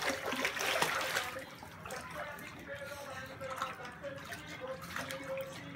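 Pool water splashing as a toddler paddles with his arms and legs, loudest in the first second or so, then quieter sloshing.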